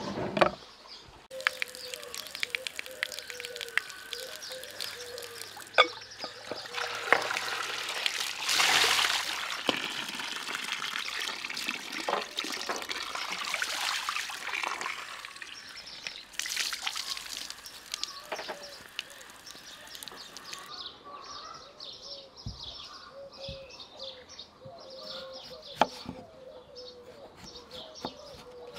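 Water pouring and splashing over peeled potatoes in a glass bowl as they are rinsed by hand, running for about the first two-thirds and stopping about two-thirds of the way in. Near the end come a few sharp clicks of a knife cutting a potato on a wooden chopping block, with birds chirping behind.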